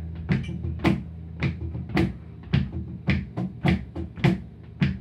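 Instrumental passage from a small acoustic band: a sharp knocking percussion beat about twice a second over acoustic guitars strumming chords.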